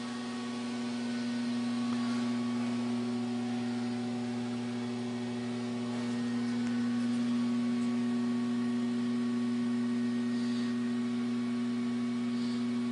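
Steady electrical hum from the high-voltage power supply of a homebrew tube amplifier with a pair of 813 tubes: one low buzzing tone with a stack of overtones, a little louder from about two seconds in.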